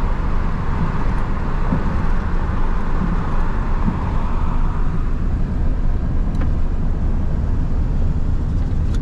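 Steady engine and road noise of a vehicle driving along a road.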